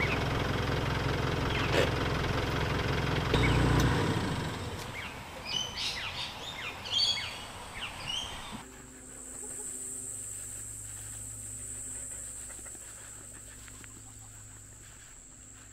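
A pickup ute's engine running as it drives slowly across grass, the rumble dropping away about four seconds in, with birds chirping over it. From about nine seconds in, a steady high-pitched insect drone with a faint low hum beneath.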